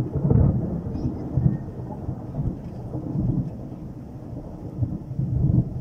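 Thunder rolling as a low rumble, loudest right at the start, dying down, then swelling again about five seconds in, with rain underneath.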